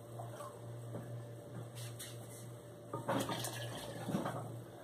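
Chicken broth poured from a cup into a blender jar, liquid splashing into the jar, loudest about three seconds in.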